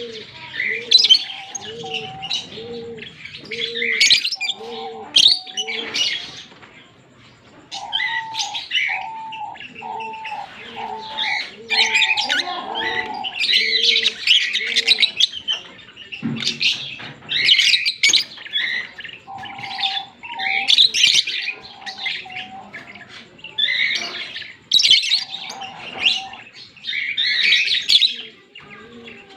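Fischer's lovebirds chirping in busy, shrill bursts with short pauses between them. Under the chirps, a lower note repeats about twice a second through the first half.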